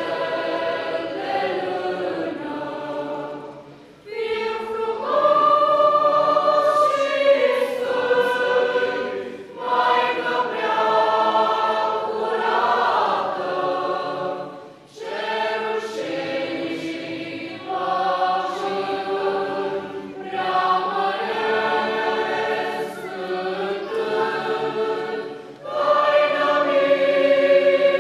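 A choir singing, phrase after phrase, with short breaks about every five seconds.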